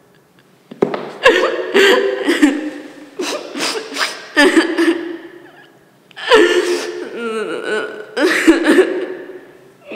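A woman crying: about four loud bouts of sobs without words, each starting with a sharp gasping breath.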